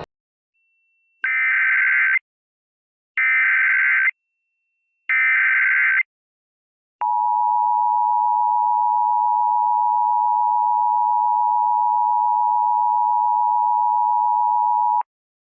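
Emergency Alert System broadcast tones announcing a new alert. Three one-second bursts of SAME digital header data are followed by the two-tone EAS attention signal, held steady for about eight seconds and then cut off sharply.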